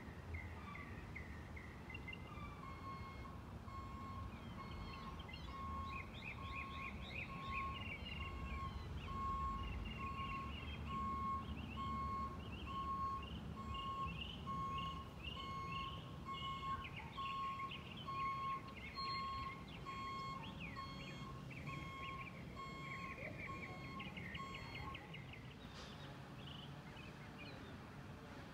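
Box truck's reversing alarm beeping at an even pace, one steady pitch, stopping near the end. Birds chirp throughout over a low engine rumble.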